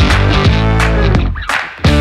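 Background music with a steady beat. Near the end it drops away briefly, then comes back in fuller.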